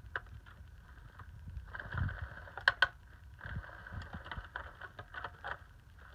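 Motorized Pounce cat toy running, its feather lure whirring around under the cover, with sharp clicks and taps as kittens paw at it, loudest as two quick clicks about two and a half seconds in.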